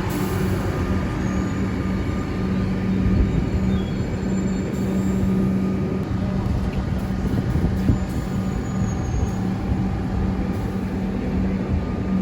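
A train running, a steady low hum over a continuous noisy rumble.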